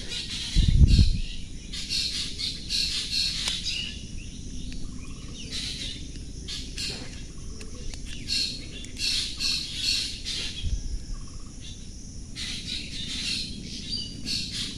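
Birds chirping repeatedly in the background, with a low thump about a second in and a softer one near eleven seconds.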